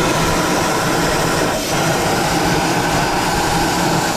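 Newly fitted LS1 5.7-litre V8 in a Holden VN Commodore running steadily at idle.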